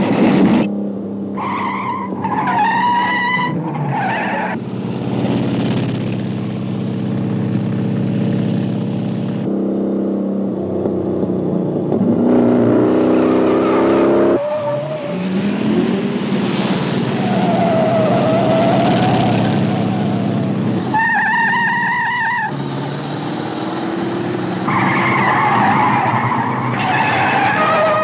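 Car-chase engines running hard and revving, one rev climbing in pitch about halfway through, with tires squealing through turns several times: near the start, about three-quarters of the way through and again near the end.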